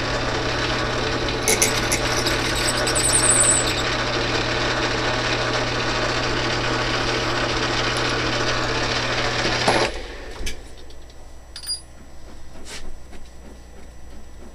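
Metal lathe running with a twist drill boring into a brass workpiece, a steady motor hum under the cutting noise, with a brief high-pitched squeal about two seconds in. The lathe cuts off suddenly about ten seconds in, leaving a few light clicks.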